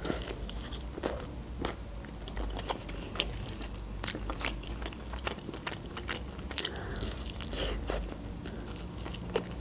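Biting and chewing of sauce-glazed chicken wings, with frequent irregular crunches and sharp crackles.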